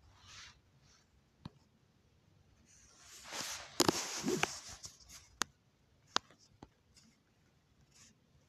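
Faint scattered clicks and taps of fingers handling a phone, with a louder rustle from about three to four and a half seconds in.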